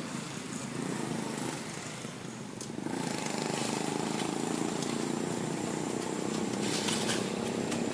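A motor vehicle's engine running nearby, its hum growing louder about three seconds in and then holding steady, over outdoor background noise with a few faint clicks.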